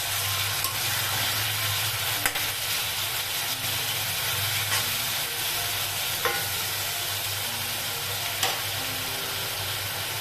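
Chicken pieces sizzling as they fry on high heat in a stainless-steel kadai, stirred with a steel ladle that clinks against the pan a few times, over a low steady hum.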